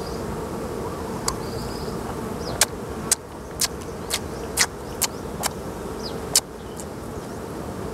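Honeybees buzzing steadily around open hives and cut honeycomb, with a series of sharp clicks, about two a second, starting a couple of seconds in.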